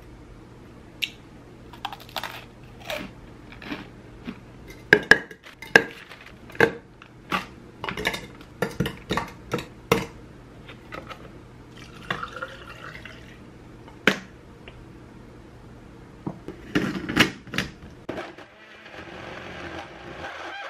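Kitchen clatter: a run of small clicks and knocks as frozen strawberries drop into a glass mason-jar blender jar, with a short pour around the middle. Near the end an Oster mason-jar blender starts up with a steady whirr.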